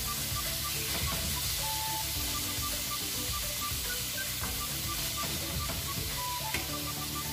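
Marinated pork strips sizzling in hot oil in a frying pan as they are stirred with a wooden spatula, with one sharp tick near the end. Background music with short repeating notes plays over the frying.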